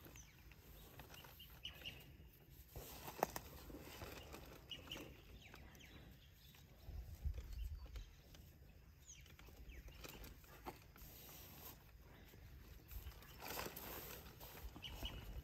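Quiet handling sounds of a fruit-tree branch being tied up with cord and wire: faint rustles and scattered clicks, with one sharper click about three seconds in.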